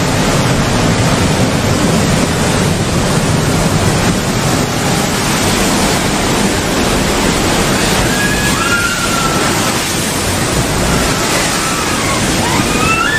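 Big waves surging, a loud steady rush of water. From about eight seconds in, people shout with a few high, drawn-out cries over the roar.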